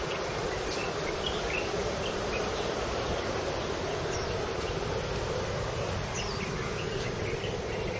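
Insects buzzing over a steady background noise, with scattered short high chirps.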